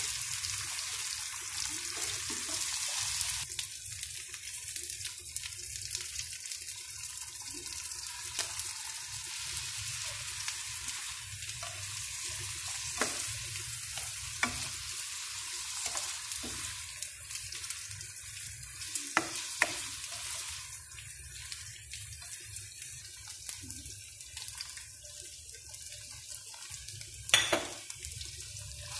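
Tofu cubes in a glaze sizzling in a nonstick wok while a spatula stirs them, with scattered clicks and scrapes of the spatula against the pan. The sizzle eases after the first few seconds, and one louder clatter comes near the end.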